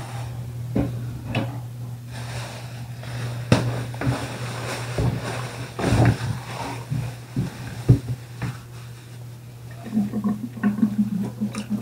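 Raw chicken pieces being handled in plastic basins, with scattered knocks and taps of the plastic tub and basin and a busier stretch of handling near the end. A steady low hum runs underneath.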